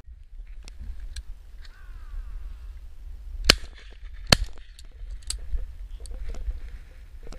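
Two shotgun shots fired in quick succession, under a second apart, from a Miroku MK70 over-and-under: both barrels discharged, the first about three and a half seconds in.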